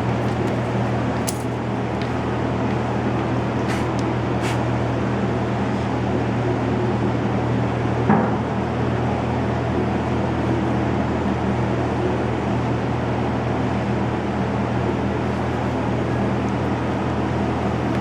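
A motor or engine running steadily with a low hum, with a few light clicks and one sharp knock about eight seconds in.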